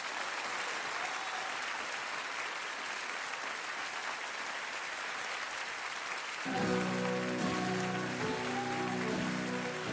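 Audience applauding steadily; about six and a half seconds in, music with held notes starts over the applause.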